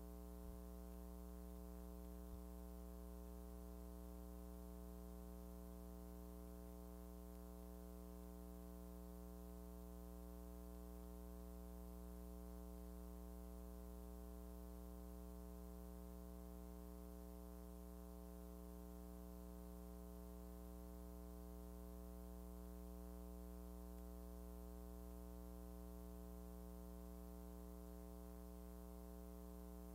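Faint steady electrical hum, a low buzz with many evenly spaced overtones that does not change, over light hiss. It is the only sound on a silent film's track.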